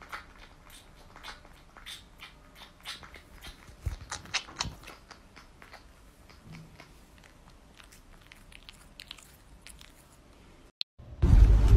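A kitten nibbling and chewing on a person's ear close to the microphone: small, irregular clicks of its mouth. Near the end a louder, steady noise takes over.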